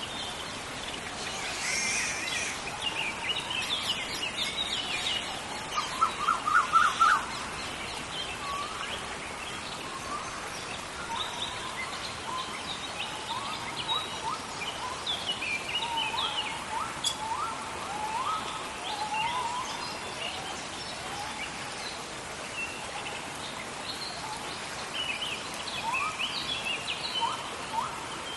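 Tropical rainforest ambience: a steady hiss of rain under many bird calls and chirps, with a quick run of repeated notes about six seconds in.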